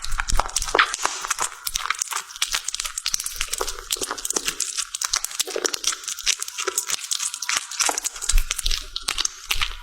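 Cat eating, a dense, rapid run of crunching and smacking chews.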